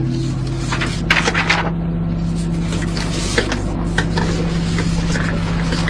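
Sheets of paper rustling as they are picked up and handled, loudest about a second in, with a few light clicks and knocks later, over a steady low hum.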